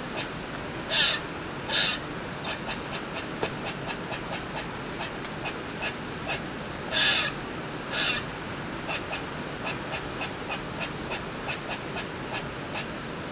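Squirrel calling over and over: a run of short, sharp chirps or barks, about three a second. Louder, longer harsh squeals break in twice about a second in and twice again around seven to eight seconds.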